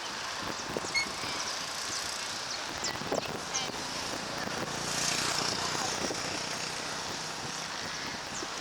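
Cessna Citation Sovereign's twin turbofan engines on approach, a steady distant jet rush that swells about five seconds in. Short bird chirps are scattered over it.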